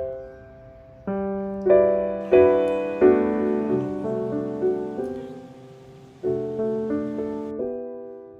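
Background solo piano music: notes and chords struck and left to ring out, in slow gentle phrases.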